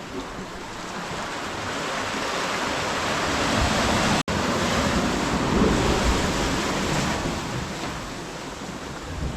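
Surf washing in, swelling to a peak midway and easing off, with wind buffeting the microphone. A split-second dropout breaks it once just before the middle.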